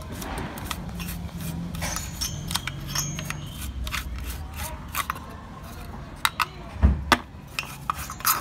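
Small bristle brush scrubbing dust off a DVR circuit board: quick scratchy strokes with scattered clicks, and a dull thump about seven seconds in.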